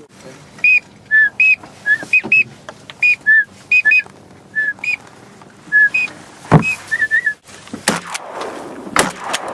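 Duck whistle call blown in short, loud peeps, alternating between a higher and a lower note, about a dozen times. A few sharp knocks and a thump come in the second half.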